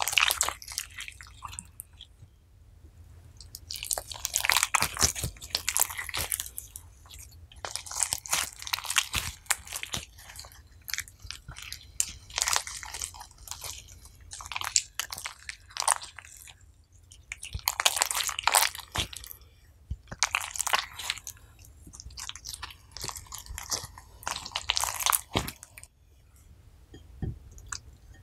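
Wet, sticky slime mixed with sea buckthorn being squeezed, folded and stretched by hand, crackling and popping in repeated bursts a second or two long with short pauses between. It goes quieter near the end.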